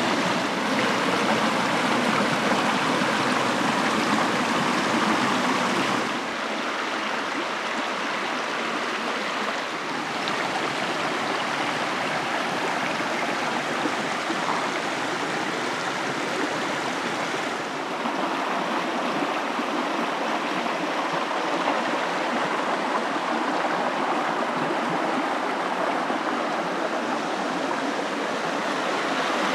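Small rocky stream rushing and splashing over stones in a shallow cascade, a steady rush of water. It drops a little in level about six seconds in and grows fuller again later on.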